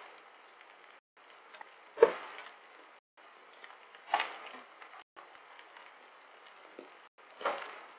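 Three sharp knocks of something striking the security camera's housing, each dying away in about half a second, over a steady faint hiss with brief dropouts about every two seconds.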